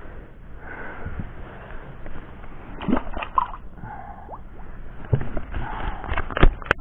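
Water sloshing and splashing as a caught pike is handled and released back into the water, with a few sudden splashes or knocks, the loudest near the end.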